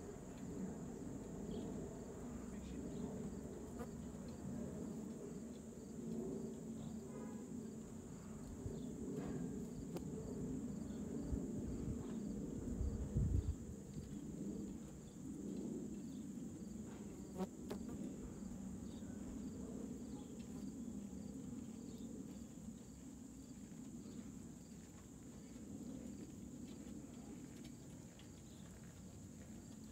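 Crickets trilling in a steady high-pitched chorus, over a low rumble from the microphone, with a brief louder low thump about thirteen seconds in.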